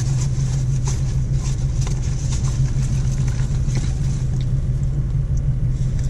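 Steady low hum of an idling car heard from inside the cabin, with faint rustling and light clicks of packaging being handled.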